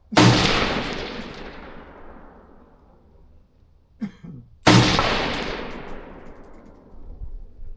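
Two gunshots on an outdoor firing range, about four and a half seconds apart, each followed by a long rolling echo that fades over a few seconds. A brief softer sound comes just before the second shot.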